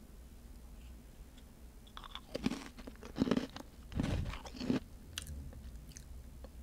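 A person biting into and chewing a crisp round cookie close to the microphone: about four loud crunches between two and five seconds in.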